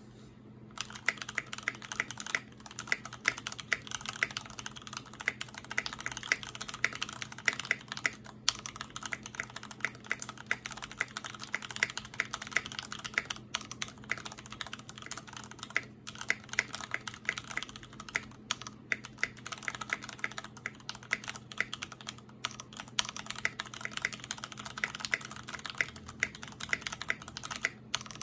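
Mechanical keyboard being typed on: an acrylic-cased GOK 7V with MX Ultra-Glide Black linear switches on 62 g springs, an aluminium plate and GMK keycaps. The keys clack in a fast, continuous run with a few short pauses, starting about a second in.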